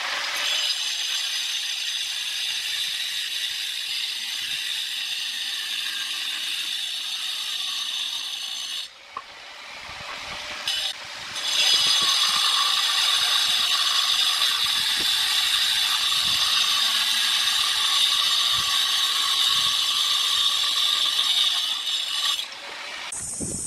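Electric angle grinder with a cutting disc sawing through a natural stone tile: a loud, high-pitched grinding whine. It eases off for a couple of seconds about nine seconds in, then cuts again, louder, and stops shortly before the end.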